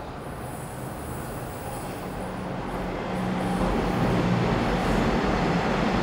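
Taiwan Railways train approaching and passing just behind a house wall: a rising rumble that gets clearly louder about three seconds in.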